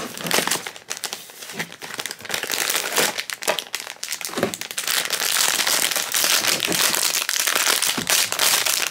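Cardboard box torn open by hand, then a foil packet crinkling as it is pulled out and handled, the crinkling densest and loudest over the last few seconds.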